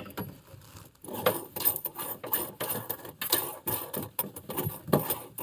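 Irregular clicks, clinks and rustling as hands work under a sink, handling a faucet's metal fittings and hoses to fasten it in place.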